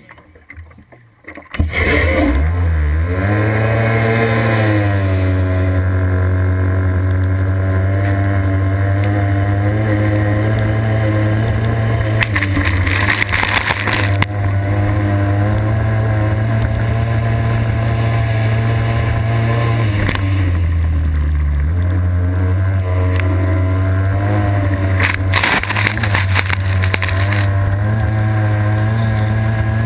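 Racing hydroplane's engine opening up to full throttle about a second and a half in, its pitch climbing and then holding steady at high revs. It drops back briefly about two-thirds of the way through and comes up again, with loud bursts of water spray hissing around the middle and near the end.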